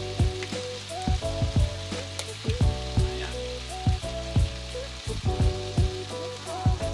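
Pork in shrimp paste sizzling in a pan just after Sprite has been poured in, a steady frying hiss. Background music with a steady beat plays along.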